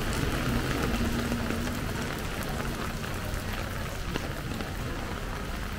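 Heavy typhoon rain falling steadily: a dense hiss of rain with many separate drops ticking close by.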